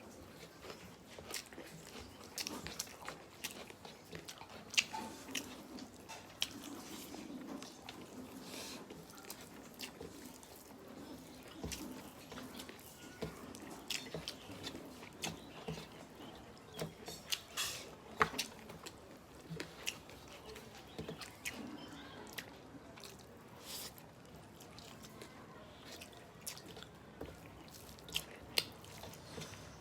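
Close-up chewing and mouth sounds of people eating a rice meal, with frequent irregular small clicks and smacks.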